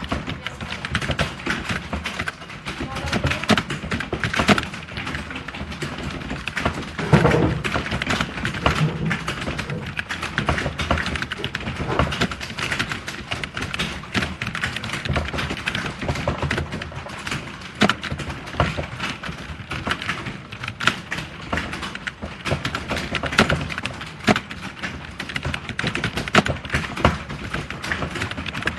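Fast, continuous typing on a computer keyboard: a dense, steady patter of key clicks.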